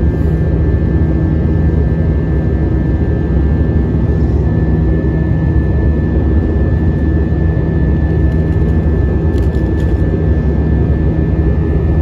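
Airbus A320-232's IAE V2500 jet engines heard from inside the cabin, running steadily: a deep even rumble with a thin, steady high whine over it.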